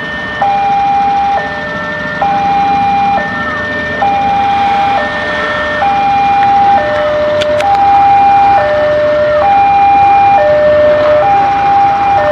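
Railway level-crossing warning alarm sounding: an electronic two-tone signal that switches between a higher and a lower note about once a second, warning that a train is approaching. Queued motorcycles idle underneath.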